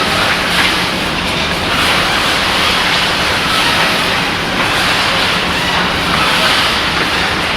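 Steady, loud machinery noise: a dense rushing hiss over a low steady hum, swelling slightly every second or two.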